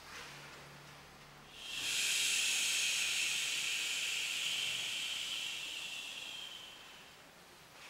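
A long, steady hiss that starts about two seconds in, holds for roughly five seconds and fades away near the end.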